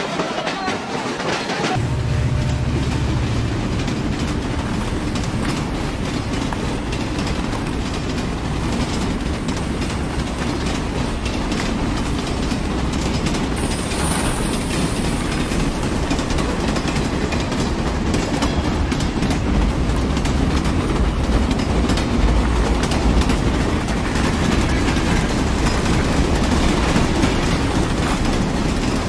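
Train running along the track: a steady rumble with repeated clicks of the wheels. The low rumble becomes heavier about two seconds in.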